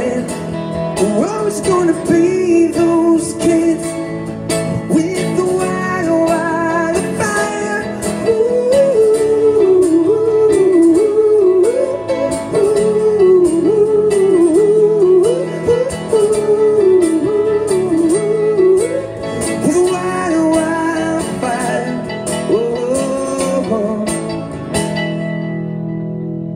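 Live amplified acoustic guitar strumming with a man singing the melody. Near the end the strumming stops and the last chord rings on.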